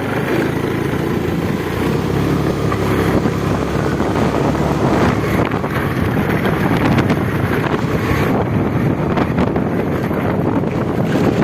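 Honda Dio scooter's single-cylinder engine running on a test ride, with wind noise on the microphone. The engine pulls without misfiring after a service with a new spark plug and air filter.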